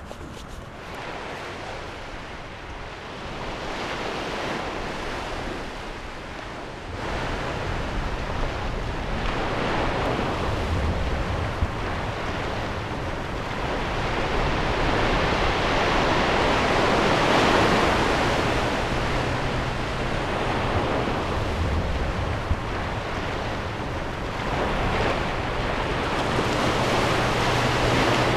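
Small sea waves washing in around the shallows, the wash swelling and falling every few seconds, with wind rumbling on the microphone.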